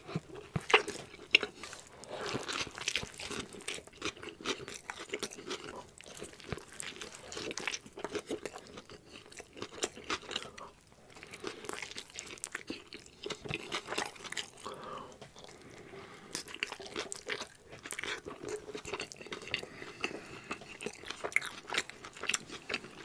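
A person biting into and chewing a large grilled burrito close to the microphone, the mouth sounds full of irregular small sharp crackles and clicks.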